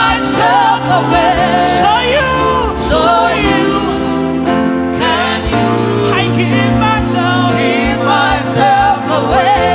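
Gospel worship music: voices singing melismatic, wordless lines over sustained keyboard chords and bass.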